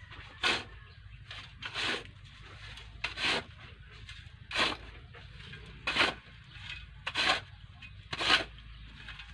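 Shovel blade scraping and scooping into a pile of sand, seven strokes about a second and a quarter apart.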